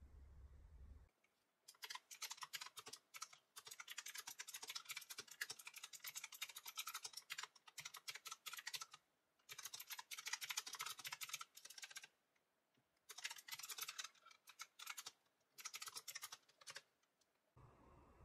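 Fast typing on a mechanical keyboard with round, typewriter-style keycaps: rapid clicking keystrokes in runs of a few seconds, broken by short pauses.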